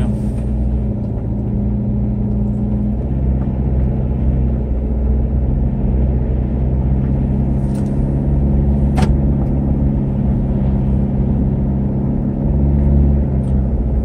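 Car engine and road noise heard from inside the cabin while driving at a steady speed: a steady low hum with a few held engine tones. A single sharp click sounds about nine seconds in.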